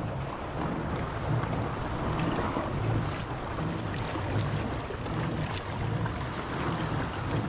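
Wind buffeting the microphone over sea water washing, a steady rush with irregular low thumps.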